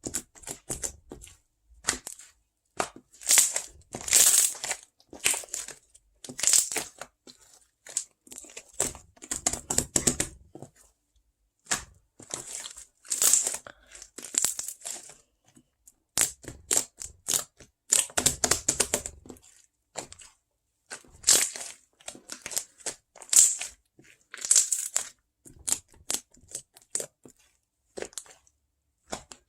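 Close-miked ASMR trigger sounds: irregular short bursts of crisp, crackly noise with brief pauses between them.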